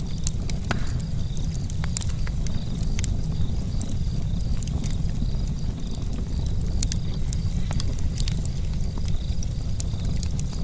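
Campfire charcoal crackling: scattered sharp pops and ticks, several a second, over a steady low rumble.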